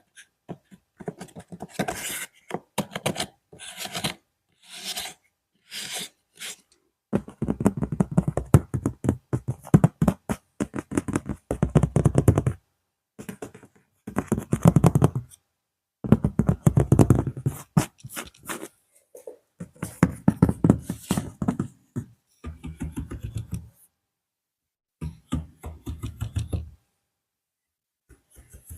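ASMR tapping and scratching close to the microphone: rapid runs of taps and clicks in clusters a second or two long, separated by short pauses. The first few seconds are thinner and scratchier; after that the clusters of taps are fuller and deeper.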